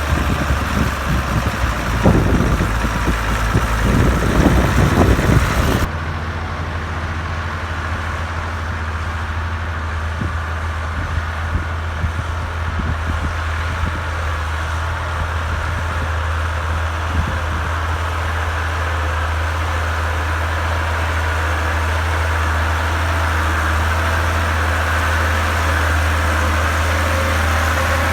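Diesel tractor engine running steadily while ploughing, a low drone that slowly grows louder. For the first six seconds wind buffets the microphone, then there is a sudden cut to a clean engine sound.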